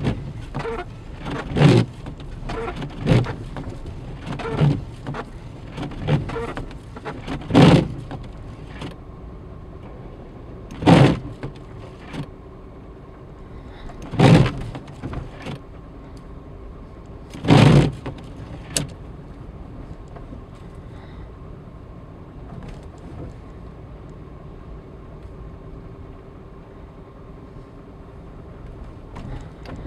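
A car driving slowly, heard from inside the cabin: a steady low engine and road hum with a run of dull thumps. The thumps come about one every second and a half at first, then a few louder ones several seconds apart, and stop a little after halfway.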